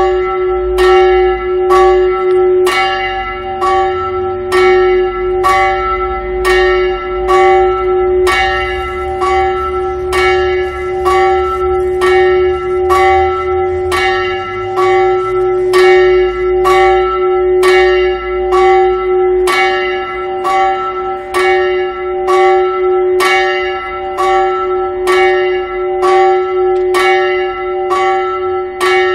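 A small 230 kg church bell swinging and ringing, its clapper striking about once a second, each stroke ringing on into the next. It is being rung as the call to a service.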